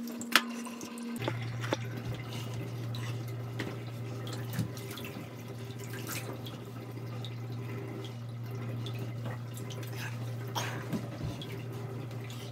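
Bathtub faucet running water into the tub, with a steady low hum setting in about a second in and a few small knocks and splashes.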